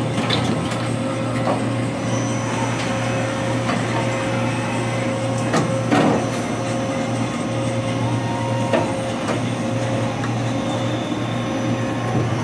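Steady machine-shop hum with a faint high whine that starts about two seconds in, and a few sharp clicks and knocks, the loudest about six seconds in.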